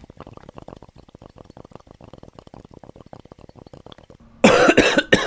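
Bong bubbling in a rapid, even stream as smoke is drawn through the water. About four and a half seconds in it breaks into loud coughing.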